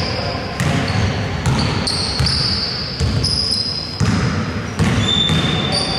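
Game sounds of indoor basketball on a hardwood court: sneakers squeaking in short, high, held tones, and thuds of the ball bouncing and of feet, about once a second.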